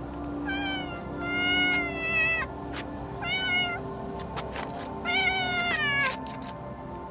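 Calico cat meowing three times: one long drawn-out meow, then two shorter ones.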